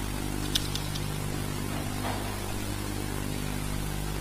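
Steady low hum with hiss, with two faint clicks about half a second in.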